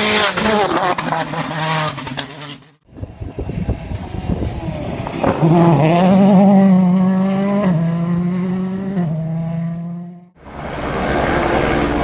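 Rally cars at speed on a wet tarmac stage, one after another: turbocharged engines revving hard, with tyre spray hissing. The middle car's engine note climbs and then steps down through gear changes, and each pass is cut off abruptly.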